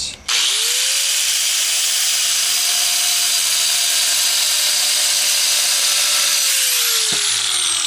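DeWalt angle grinder with a diamond blade spinning up and cutting a slot into the edge of a thin natural stone veneer piece, the slot that holds the mounting clip: a steady high whine with gritty cutting noise. About six and a half seconds in the trigger is released and the motor winds down, its whine falling in pitch.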